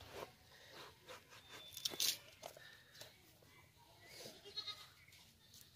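A knife peeling and cutting a fresh eggplant (brinjal), with short scraping and crunching clicks; the sharpest crunch comes about two seconds in. An animal calls faintly in the background.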